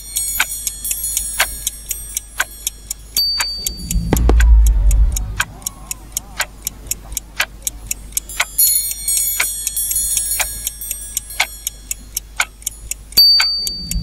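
Countdown clock sound effect: a clock ticking about once a second over high chiming tones. A short high beep comes about three seconds in, followed by a loud low firework bang with a fizzing tail, and the same beep and bang come again near the end.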